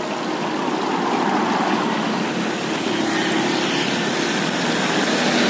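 Road traffic: a passing vehicle's engine, slowly growing louder.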